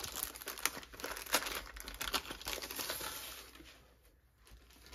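Thin plastic packaging pouch crinkling and crackling as it is handled and opened by hand, with sharp crackles throughout; it goes quiet near the end.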